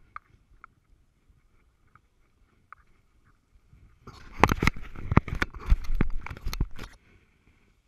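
Gloved hands handling a GoPro camera housing: about three seconds of loud rubbing and knocking on the camera, starting about four seconds in and stopping suddenly.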